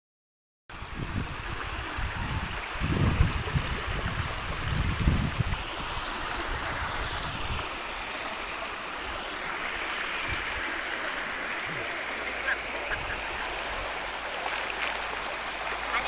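Stream water rushing steadily down smooth rock chutes and cascades. A few low rumbling buffets come between about two and six seconds in.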